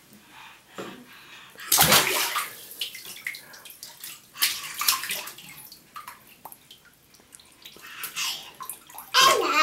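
Bathwater splashing and sloshing in a tub as a baby plays, in irregular bursts: the loudest about two seconds in, more around five seconds, smaller ones near the end. A high squeal begins right at the end.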